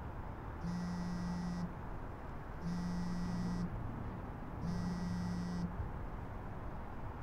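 A smartphone vibrating for an incoming call: three buzzes of about a second each, roughly two seconds apart, over a steady background hiss.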